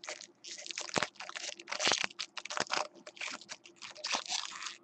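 Foil wrapper of a baseball card pack being torn open and crinkled, with an irregular run of crackling rustles and clicks.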